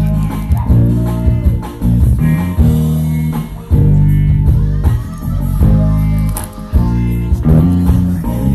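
Live band playing, with a heavy bass guitar line and guitar chords struck in a steady rhythm.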